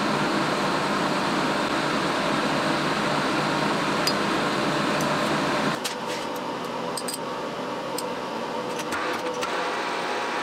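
Steady machine-shop hum and hiss, like a motor or fan running. About six seconds in it drops to a quieter hum, with a few light clicks as the metal lathe's controls are handled.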